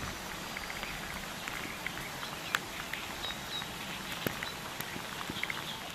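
Steady rain falling on a lake's surface: a soft, even hiss with scattered ticks of individual drops.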